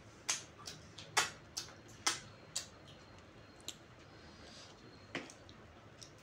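Eating sounds: a series of sharp, irregular clicks and smacks from chewing with the mouth open, most of them in the first three seconds and a couple more later.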